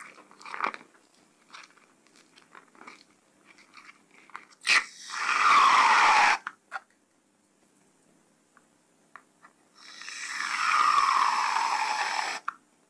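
Foam squished by hand with small crackles, then an aerosol foam can spraying foam into a cup twice. Each spray is a long hiss with a falling tone under it, the first starting about five seconds in and the second, longer one near the end.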